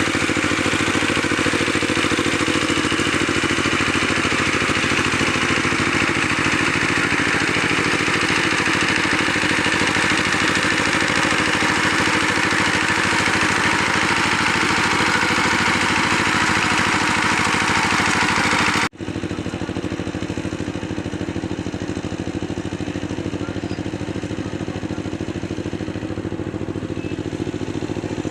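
An engine running steadily. About two-thirds of the way through, the sound cuts off abruptly for an instant, then carries on quieter and duller.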